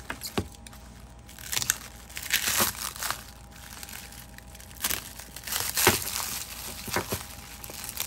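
Plastic wrap and packing material being handled and unwrapped by hand: irregular crinkling and rustling, with a few sharp clicks.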